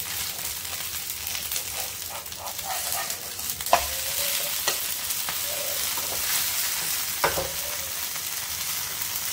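Green-chickpea batter pancake (cheela) sizzling steadily in hot oil in a non-stick frying pan. A spatula taps sharply against the pan twice, about a third of the way in and again near the end.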